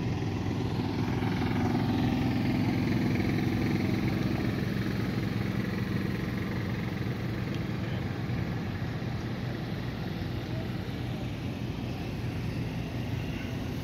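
Pro mod drag cars' big V8 engines, one with an exposed supercharger, idling with a heavy, lumpy sound as they roll slowly past. The sound is loudest a few seconds in and eases off a little after.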